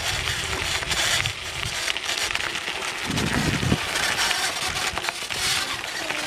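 Bicycle tyres crunching and crackling over a gravel trail while riding, with wind buffeting the microphone and a brief louder rumble a little after halfway.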